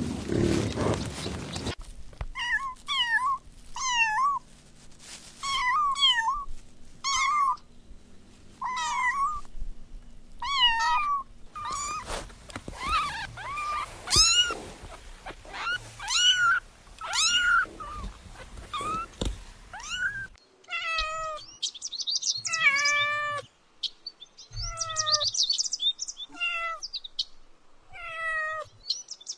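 Kittens meowing repeatedly in short, high-pitched cries, about one a second. The calls come from several different recordings joined one after another.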